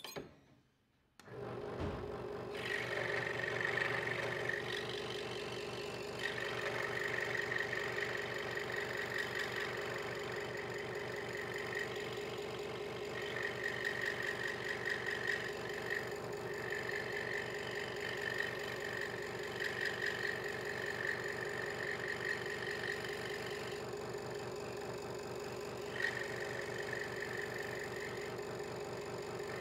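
Hegner Multicut 2S scroll saw switched on about a second in and running steadily, its blade cutting a small piece of wood with a higher rasp that comes and goes as the work is fed and turned.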